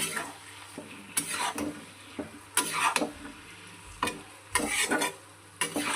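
Stirring a thick onion-tomato masala, just mixed with chilli sauce and tomato sauce, in a frying pan: about six scraping strokes of the utensil against the pan, with a low sizzle underneath.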